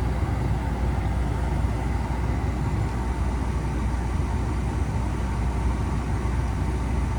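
Steady low rumbling background noise, even throughout, with no distinct knocks or events.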